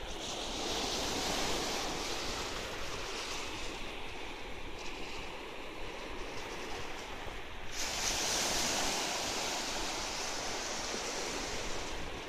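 Low sea waves breaking and washing up a sandy shore: a steady rush of surf, swelling near the start and again suddenly a little past the middle.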